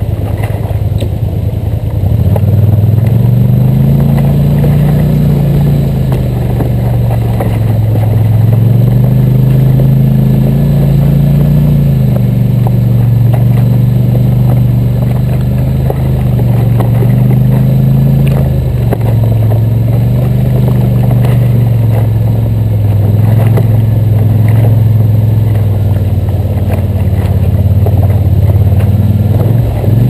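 Four-wheeler ATV engine running up close, its pitch rising and falling in slow waves as the throttle opens and closes over a rough trail.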